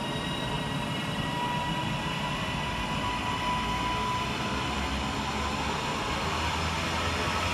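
Class 331 electric multiple unit pulling away from the platform, its traction equipment giving a steady whine of several high tones, one rising slightly in pitch, over a low rumble that grows louder toward the end.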